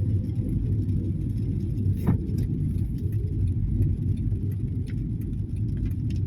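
Steady low rumble of a car driving on a wet road, heard from inside the cabin, with one sharp click about two seconds in.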